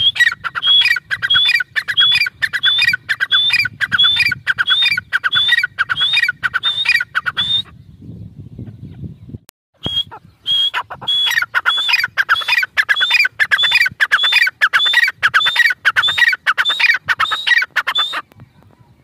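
Grey francolin calling: a long series of loud, evenly repeated notes, about two a second, breaking off for about two seconds before the middle, then starting again and running on until near the end.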